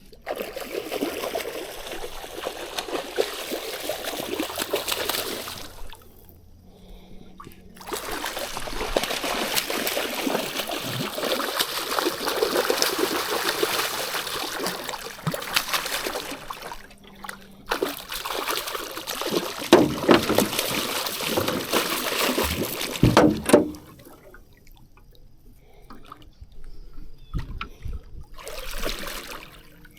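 River water trickling and splashing, in several stretches that start and stop abruptly, with quieter gaps between them.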